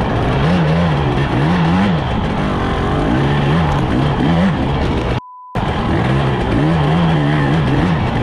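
Husqvarna TE 300i two-stroke dirt bike engine heard from a camera on the front fender, its revs rising and falling over and over as the throttle is worked, with wind and tyre noise over it. About five seconds in, the engine sound cuts out for a moment behind a short steady beep.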